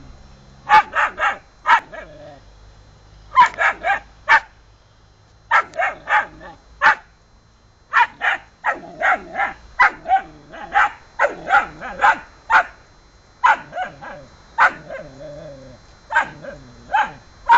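Puppy barking at a cat in short runs of high, sharp barks and yips, three to six at a time with brief pauses between runs.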